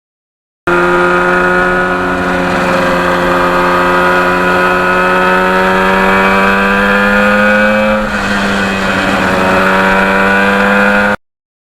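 1977 Yamaha RD400's two-stroke twin engine running under way, its pitch climbing slowly as it pulls. About eight seconds in it dips briefly, then climbs again. The sound starts and stops abruptly.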